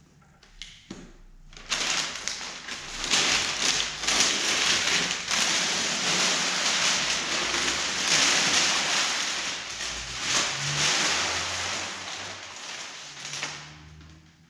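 Masking paper and tape being peeled off a freshly painted car bumper and crumpled: a dense crinkling and crackling of paper, starting about two seconds in after a few small clicks and fading out near the end.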